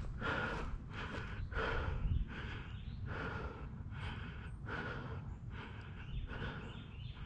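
A person breathing hard in quick, regular breaths, over a steady low rumble.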